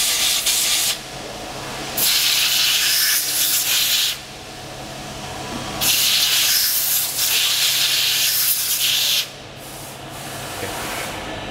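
Compressed-air blow gun cleaning chips and coolant off a freshly machined threaded part in a CNC lathe, in three hissing blasts: the first cuts off about a second in, the second runs for about two seconds, and the third runs from about six to nine seconds in. A steady low hum sits underneath.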